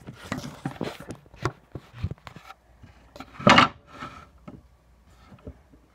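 A mini hammer tapping a nail into a wooden block: irregular sharp knocks, with one louder, longer clatter about three and a half seconds in.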